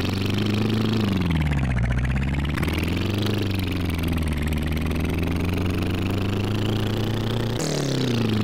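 Heavy machinery engine running steadily. Its pitch drops about a second in, lifts briefly around three seconds and shifts again near the end, as the engine is worked.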